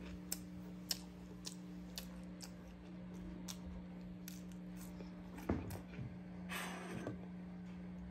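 Faint scattered ticks and small taps, then a light knock about five and a half seconds in and a brief rustle a second later, over a steady low hum.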